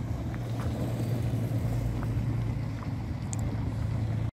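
A car engine running steadily, a low even hum.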